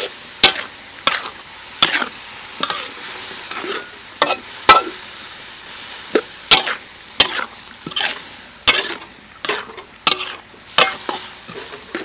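Metal spatula scraping and knocking against a large metal wok while stir-frying sliced green and red chillies in sauce, in irregular strokes about once a second, over a steady sizzle.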